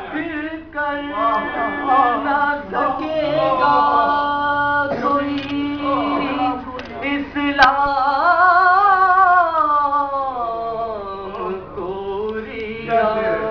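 A man reciting a Salam, an Urdu devotional elegy for Muharram, in a sung, melodic style, drawing out long wavering notes and gliding between pitches. A short sharp click sounds about halfway through.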